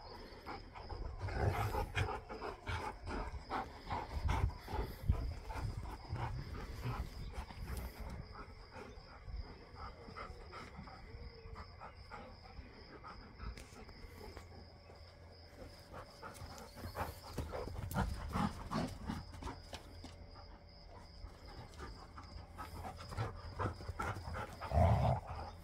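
Two dogs playing tug-of-war with a rope toy, panting and scuffling, in irregular bouts that are louder near the start and near the end.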